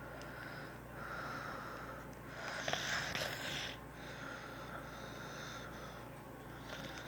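Faint breathing and sniffing close to the microphone, in soft swells every second or two, the strongest about halfway through, with a small click near the end.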